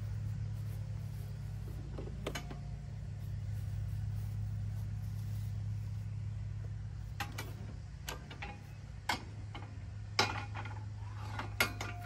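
Sharp metal clanks and clinks of steel hitch parts being handled on a compact tractor's three-point hitch while a box blade is hooked up: one about two seconds in, then a run of them over the last five seconds. Under them runs the steady low hum of the idling tractor engine.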